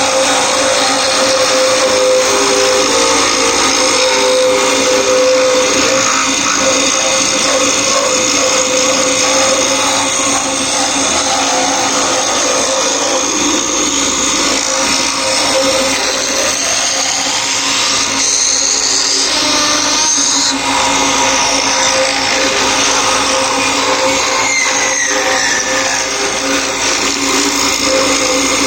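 Cane sizing (milling) machine running, a loud, continuous whine and grind with a steady hum under it. In the second half a few whining tones slide up and then back down.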